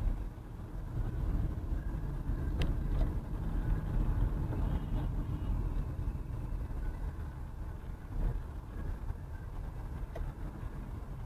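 Car driving, heard from inside the cabin: a steady low rumble of engine and tyres on a slushy road, with one sharp click about two and a half seconds in.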